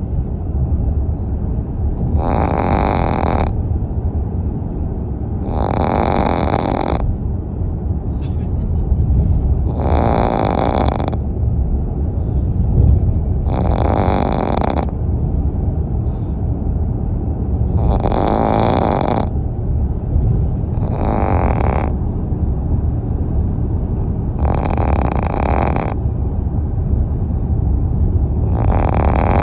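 Sleeping puppy snoring: a breathy snore about every three and a half to four seconds, eight in all, over a steady low rumble.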